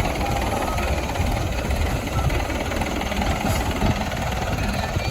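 Diesel engine of heavy earth-moving or farm machinery running steadily.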